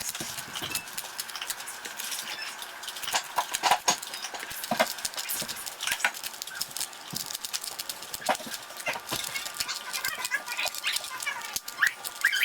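Rapid, irregular clicking and clacking of a stiff standard Rubik's Cube's plastic layers being turned by hand during a solve.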